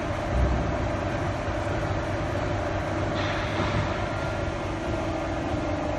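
QC12K hydraulic shearing machine's electric motor and hydraulic pump running idle, not cutting: a steady hum with a low rumble underneath.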